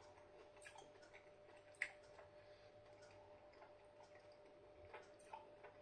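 Near silence: faint mouth clicks from chewing with the mouth closed, the sharpest about two seconds in, over a faint steady hum.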